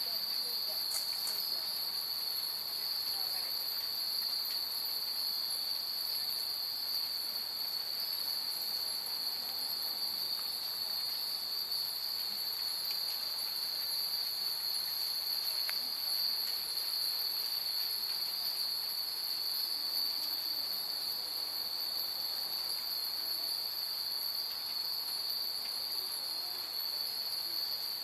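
A steady, high-pitched chorus of night insects chirring without a break, with a faint tinkle of hanging furin wind chimes once or twice.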